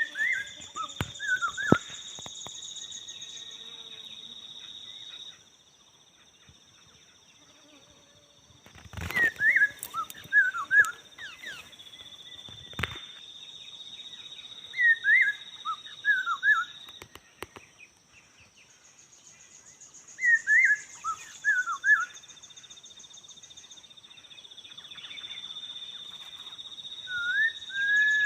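Laughingthrush song: short bursts of quick, falling chirpy notes, repeated in clusters about every five seconds. Behind it insects buzz steadily at a high pitch, and two sharp knocks come about 9 and 13 seconds in.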